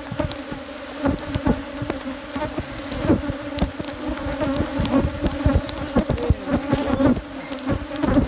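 Honeybees buzzing in a steady hum over an opened hive, with frequent knocks and bumps as the hive boxes are handled.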